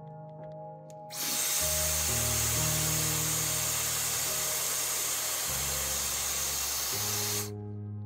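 Electric hair dryer blowing steadily on the iPhone's back glass to soften its adhesive. It switches on about a second in and cuts off abruptly near the end. Background music plays throughout.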